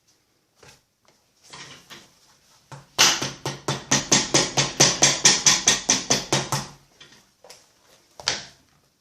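A hammer striking a homemade metal cobbler's anvil in a quick, even run of about seventeen blows, four to five a second, each with a short metallic ring. Lighter handling knocks come before it, and a single louder clunk comes near the end.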